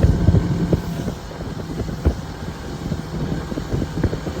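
Boat outboard motor running steadily, dropping in level about a second in, with wind on the microphone and scattered short knocks.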